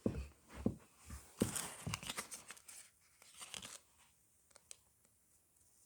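Faint rustling and scattered small clicks of scissors and a soft plush toy being handled while trying to snip off the toy's tag. The sounds die away after about four seconds, leaving only a couple of light clicks.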